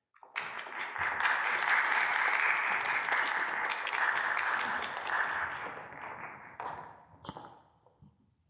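Audience applauding, fading out with a few last separate claps near the end.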